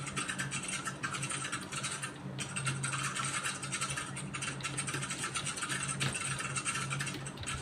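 Computer keyboard being typed on continuously, a fast clatter of keystrokes with a brief pause about two seconds in, over a steady low hum.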